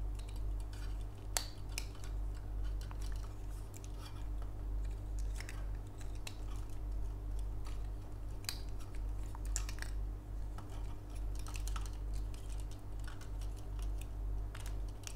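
Hard plastic parts of a Figure-rise Standard Amplified Omegamon X-Antibody model kit clicking and tapping at irregular moments as they are handled and pushed back into place, over a steady low hum.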